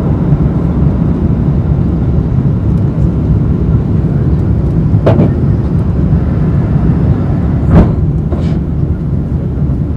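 Cabin noise of an Airbus A350-900 climbing after takeoff: the steady rumble of its Rolls-Royce Trent XWB engines and the rushing air, heard from a seat behind the wing. A few brief knocks come about five and eight seconds in.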